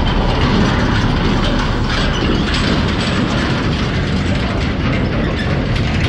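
Steady low rumble and clatter of a vehicle travelling over a rough, partly unpaved road, with irregular rattling knocks.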